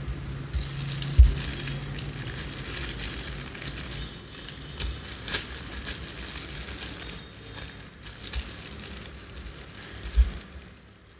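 Clear plastic bag of LEGO parts crinkling and crackling as hands turn it over and squeeze it, with a few low thumps and a sharp click from the handling.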